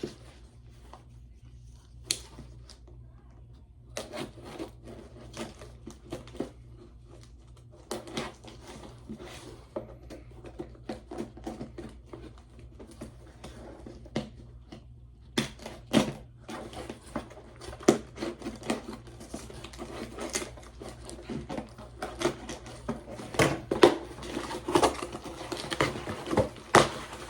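Packaging being handled and opened by hand: scattered clicks, taps and rustles of cardboard and plastic, busier from about halfway through.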